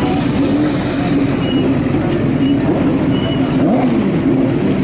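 Several classic racing motorcycle engines running together, idling and being blipped, their revs rising and falling and overlapping.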